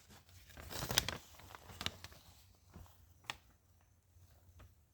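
Faint handling noise, rustling and crinkling with a few sharp clicks, as a small part is handled close to the microphone. The loudest is a burst of rustling about a second in.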